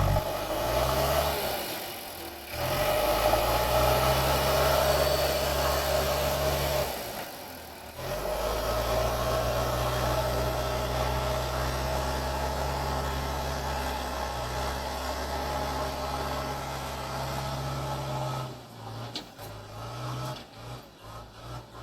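Diesel engine of a JCB 3DX backhoe loader running steadily under work, dropping off briefly twice and turning uneven and quieter near the end.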